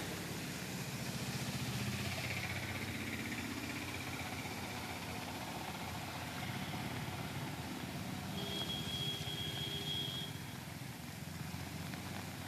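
Traffic on a waterlogged road: vehicle engines running as auto-rickshaws and motorcycles drive through standing water. A thin, steady high tone sounds for about two seconds a little past the middle.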